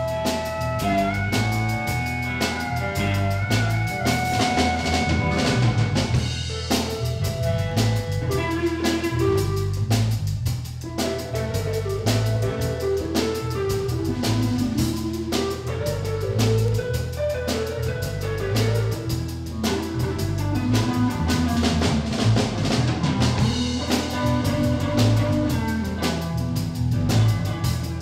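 Live blues band playing: drum kit, bass and electric guitar, with a harmonica holding long notes in the first few seconds.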